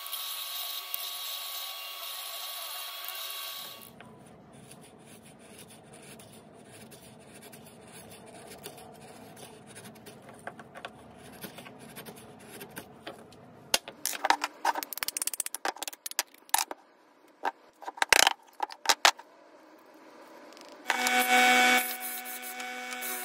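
A wet-stone sharpening wheel grinds a steel chisel steadily for the first few seconds, then stops. Later the chisel pares wood in a quick flurry of short scraping cuts, and near the end a disc sander runs loudly with a steady hum as a block is pressed against it.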